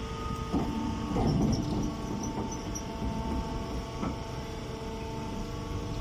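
Chopped-straw baling machine running with a steady electric hum of several fixed tones, with irregular rustling and knocks in the first couple of seconds.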